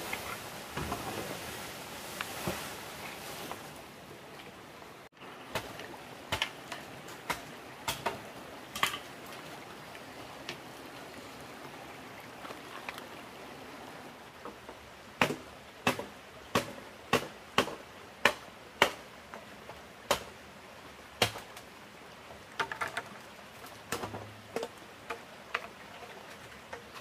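Running water for the first few seconds, then, after a cut, sharp knocks: a few scattered at first, then a quick run of about ten, roughly two a second, and a few softer taps near the end.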